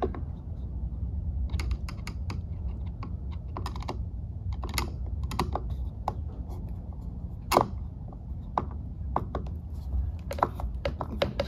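Phillips screwdriver turned by hand, driving a screw through a plastic ant leg into a plastic hive bottom board socket: irregular small clicks and ticks as the screw threads in and the handle is regripped, with one louder click about seven and a half seconds in.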